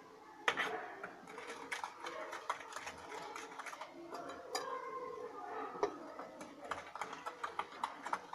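Plastic whisk stirring flour into cake batter in a glass bowl, giving irregular light clicks and taps against the bowl, the sharpest about half a second in. Faint voices in the background.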